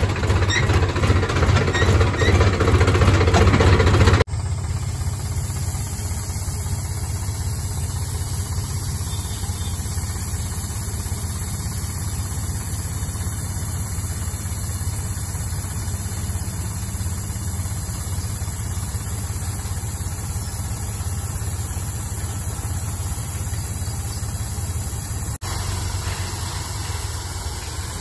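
Swaraj 735 tractor's diesel engine running, louder for the first four seconds, then after a cut running steadily with a steady high hiss while the hydraulic trolley tips out its load of paddy.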